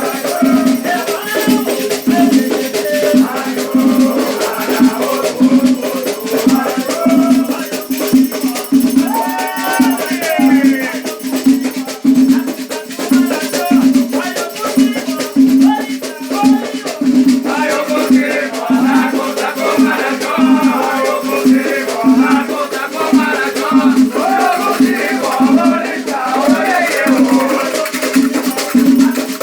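Afro-Brazilian Batuque ritual music: a drum keeps a steady beat about twice a second under continuous shaker rattling. Voices sing over it, most strongly in the second half.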